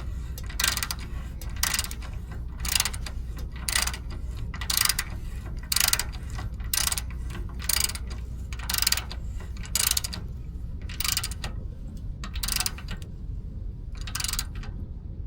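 Hand ratchet clicking in a steady rhythm, about one stroke a second, as the threaded sleeve on the upper ball joint is run in to put a load on it; the strokes stop near the end.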